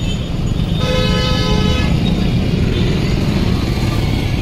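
Low rumble of road traffic, with a vehicle horn sounding once, a single steady tone held for about a second, beginning about a second in.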